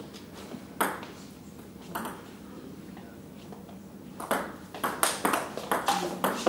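Table tennis ball play: two single sharp taps about one and two seconds in, then from about four seconds in a fast rally, the ball clicking quickly on the paddles and the table several times a second.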